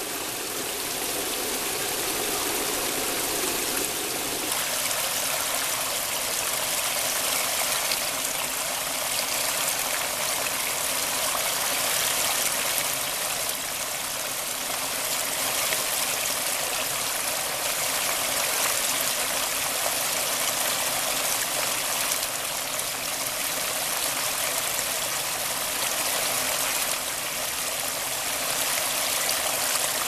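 Shallow stream water running steadily over and around a fallen log, an even rushing and splashing. The sound shifts slightly about four seconds in.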